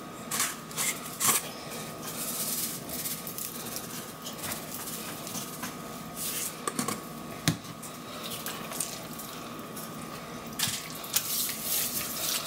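Seasoning containers handled at a kitchen counter: plastic lid clicks and taps, then seasoning shaken out of a shaker-top jar onto a raw beef roast as a light hiss of falling granules. Hands rub it into the meat near the end. A faint steady tone runs underneath.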